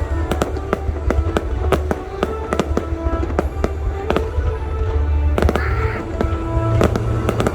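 Aerial fireworks going off in rapid succession, several sharp bangs and crackles a second, over loud music with a heavy bass.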